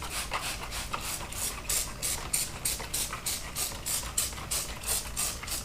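Tire-mounting lubricant being worked onto a motorcycle tire bead and rim with quick, even scrubbing strokes, about four a second.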